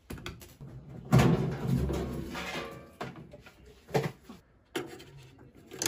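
Thin sheet-metal outer casing of a microwave oven being slid back and lifted off its chassis. About a second in there is a scraping, rattling metal sound lasting about two seconds, followed by several separate knocks and clicks.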